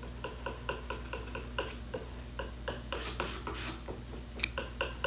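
Steady, even ticking, about three ticks a second, with a faint rubbing around three seconds in as a brush mixes oil paint on palette paper, and one sharper click near the end.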